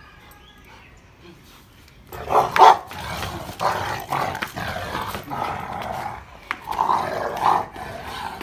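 Rottweiler growling in play as it bites and tugs at a rubber tyre, starting about two seconds in and going on in short rough spells with brief pauses.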